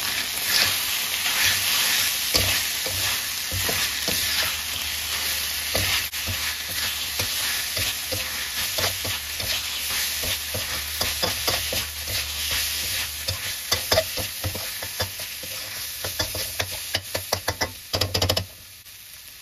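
Minced pork and stink beans sizzling in a wok while a metal spatula stirs and scrapes the pan, with frequent short clinks and scrapes. The stirring stops near the end and the sound falls to a quieter sizzle.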